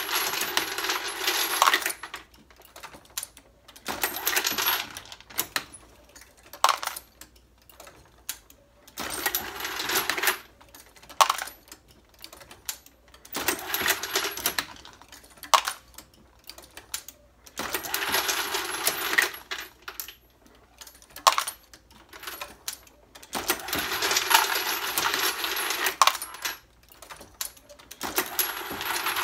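Loose 9mm cartridge components, brass cases and bullets, clinking and rattling as a hand works through them in a parts bin. The rattles come in bursts of a second or two, about every four to five seconds, with sharp single clicks between.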